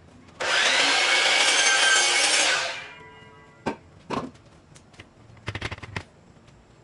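DeWalt sliding compound miter saw running up and cutting through a wooden board for about two seconds, then winding down. A few sharp knocks and a brief clatter follow.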